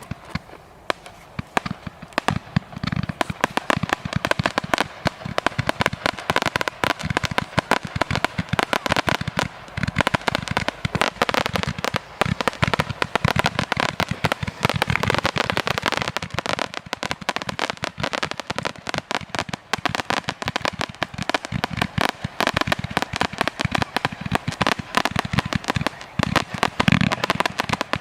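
TKB891 Strike multi-shot fireworks cake (469 shots in 12, 25 and 30 mm calibres) firing: a few separate shots at first, then from about two seconds in a rapid, unbroken run of bangs and pops, many a second, with crackling.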